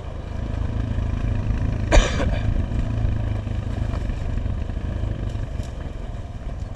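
ATV engine running steadily, with one sharp knock about two seconds in.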